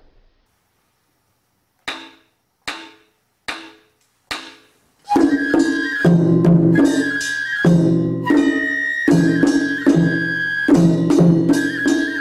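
Japanese matsuri-bayashi festival music: four evenly spaced strikes as a count-in, then about five seconds in the ensemble of drums and a bamboo flute comes in, the flute holding a high note with quick turns over the drum beat.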